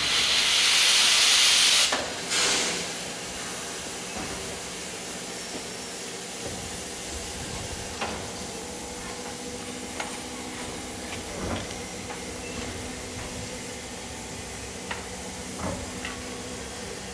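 A DR class 41 Reko steam locomotive lets out a loud hiss of steam for about two seconds, then a second shorter burst. After that comes a steady low background with a faint hum and a few scattered metallic clicks and knocks.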